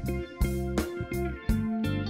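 Instrumental background music: sustained notes over a few sharp percussive hits.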